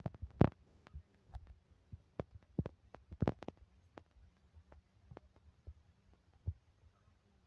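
Irregular soft thumps and clicks of footsteps and phone handling as someone walks while filming, over a faint steady low hum. The loudest knocks come about half a second in and again around three and a half seconds in.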